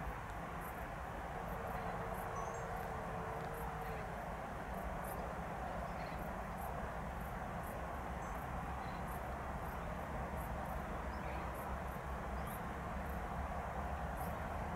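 Open-field ambience: a steady hiss and low rumble, with short high-pitched insect chirps repeating about once or twice a second.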